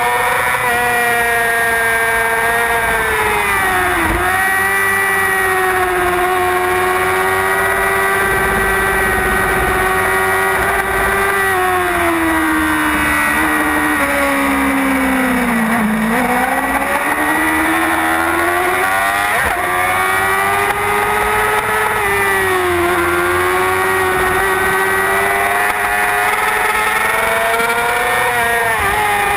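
Racing superbike engine at high revs, heard onboard at speed, with rushing noise underneath. Its pitch dips and climbs back at each gear change, and about halfway through it falls for longer as the bike slows into a bend, then rises again as it drives out.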